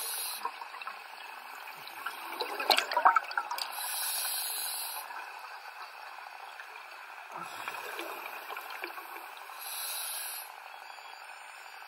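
Scuba diver breathing through a regulator underwater: short hissing inhalations alternate with crackling bursts of exhaled bubbles, about two full breaths.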